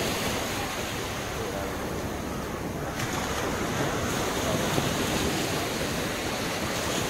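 Low sea waves breaking and washing up a sandy beach: a steady surf hiss that grows brighter about three seconds in.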